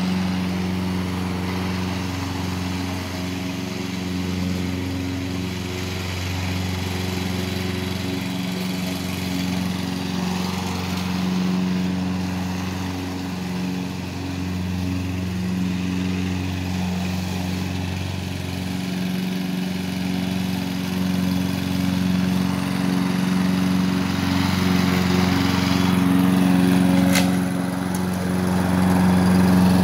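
Small gasoline engine of a walk-behind push lawn mower running steadily at mowing speed, getting louder over the last few seconds as the mower comes close.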